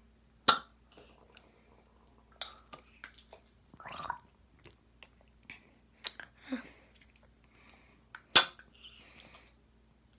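Water squirted from a Nike Sport plastic squeeze bottle into an open mouth: a few short squirts with wet mouth and swallowing noises, and scattered sharp clicks from the bottle being handled, the two loudest about half a second in and about eight seconds in.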